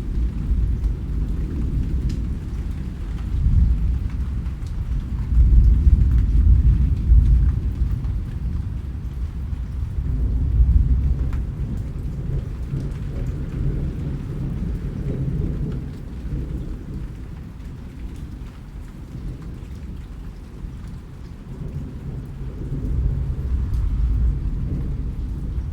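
Rain falling under a low rolling rumble of thunder that swells and fades, loudest around five to eight seconds in and again near the end.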